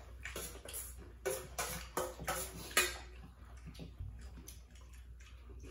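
Noodle soup being eaten from stainless steel bowls: a quick run of short slurps and spoon clinks against the metal bowl, mostly in the first three seconds.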